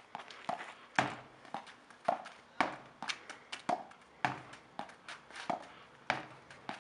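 Tennis ball hit with a junior racket against a garage door and bouncing on asphalt: a string of sharp knocks, about two a second, some louder than others.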